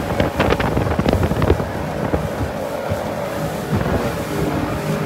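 Sea-Doo Speedster jet boat with its Rotax 4-TEC engine running under way over chop, with wind buffeting the microphone. Spray and hull slaps make a series of splashes for about the first second and a half, then it settles into a steadier rush of water and engine.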